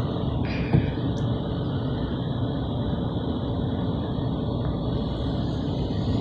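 Steady car wash machinery noise, an even hiss over a low rumble, with a single knock about three-quarters of a second in.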